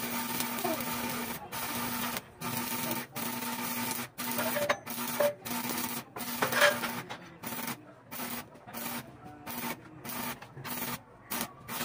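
Electric arc welding on a steel-tube sidecar frame: a steady hiss, broken again and again by short gaps as the arc stops and is struck again, more often in the second half.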